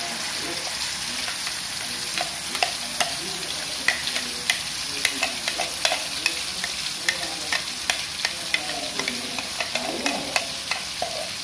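Ground chili-and-shallot spice paste sizzling in hot oil in a wok as it is poured in. From about two seconds in, a spoon scraping the paste out of the blender jar makes many sharp, irregular clicks over the sizzle.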